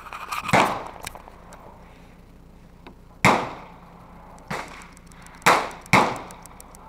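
Gunshots from other shooters along a range's firing line: four loud shots, the last two close together near the end, with a fainter one between.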